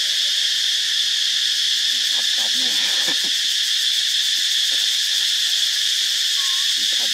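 Steady, high-pitched insect drone, cicadas or crickets, filling the forest without a break.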